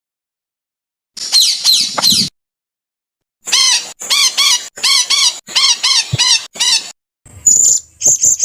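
Edited songbird song for bird tutoring (masteran): separate phrases of quick, repeated down-slurred chirps, about four notes a second, broken by gaps of dead silence. Near the end comes a thin high whistle mixed with rapid ticking notes.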